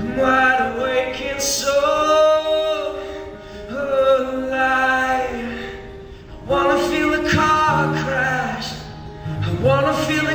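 A man singing live into a microphone to his own strummed acoustic guitar, in sung phrases with short breaks between them.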